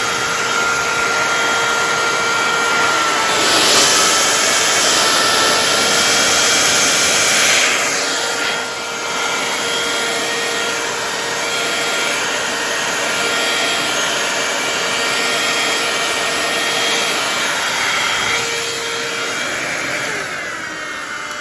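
Small electric air blower running steadily, air rushing from its nozzle over a steady motor whine, pushing wet acrylic paint outward into a bloom.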